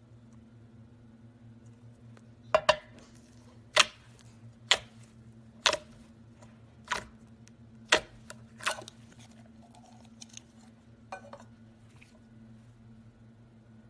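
Slime being handled, giving a series of sharp pops about once a second, then a few fainter ones, over a steady low hum.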